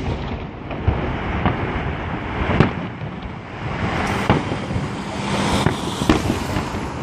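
Fireworks display: shells bursting in a run of sharp bangs, about five in seven seconds, over a steady rumbling noise.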